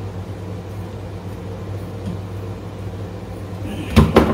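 Steady low machine hum, with two sharp knocks close together near the end as the plug being wired is handled.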